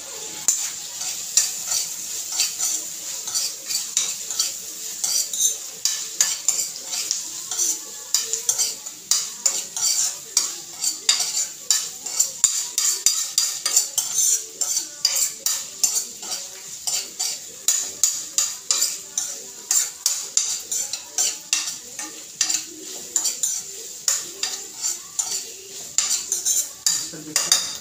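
Diced food sizzling in oil in a frying pan while a utensil stirs it, with quick repeated clicks and scrapes of the utensil against the pan over a steady frying hiss.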